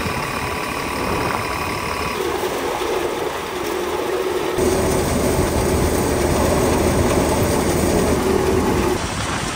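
Tractor engine and tractor-driven threshing machine running with a steady mechanical drone, in a few short clips that cut abruptly one after another.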